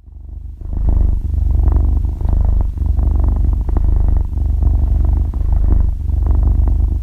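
Cat purring close up: a steady, evenly pulsing low purr that dips briefly about once a second. It fades in at the start.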